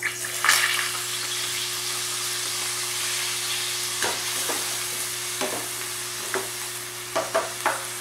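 Chopped onion sizzling in melted butter and oil in a stainless-steel saucepan, a steady frying hiss. A spoon stirs and scrapes the pan now and then, with a quick cluster of strokes near the end.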